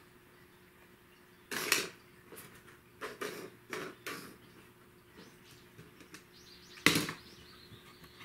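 A cat batting a small toy minicar truck across a wooden floor: a brief rustle, a run of light knocks and scrapes, then one sharp clack with a short ringing rattle near the end as the toy is struck.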